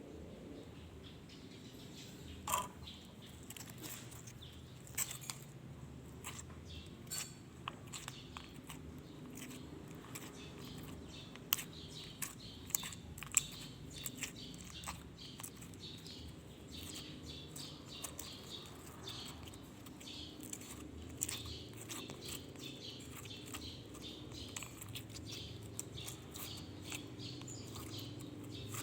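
Hands squishing and stretching slime, making many small, irregular sticky clicks and pops over a faint steady hum.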